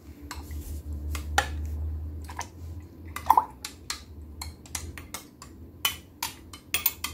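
A utensil clicking and tapping against the inside of a glass jar while pickled beetroot, shallots and chili in brine are stirred: irregular sharp clinks, with one short ringing clink a little after a third of the way in. A low hum runs underneath in the first half.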